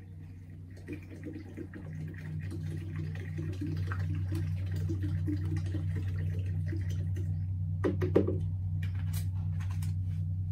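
Liquid glugging as it is poured from a plastic bottle into a plastic jerrycan, over a steady low machine hum that grows louder about two seconds in and pulses about twice a second. A sharp knock about eight seconds in.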